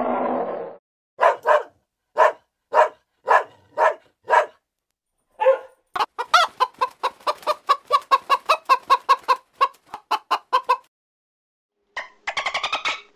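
Chickens clucking: first a row of separate short clucks, then a faster run of clucks about four a second. A noisy sound fades out in the first second. Near the end comes a dense train of rapid clicks with gliding whistles, which fits dolphins.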